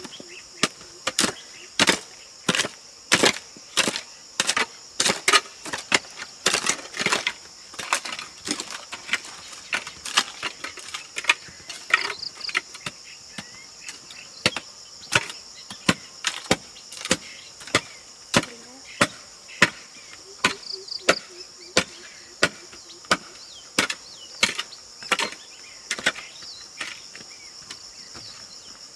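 Steady chopping, sharp knocks of a blade striking wood about one to two times a second, over a steady high drone of insects.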